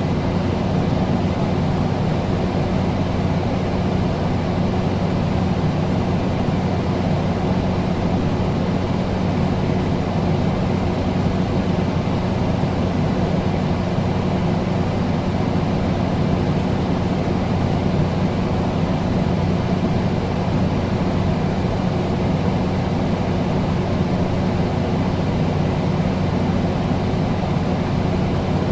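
Air conditioner running steadily: an even rush of air over a low, constant hum that does not change.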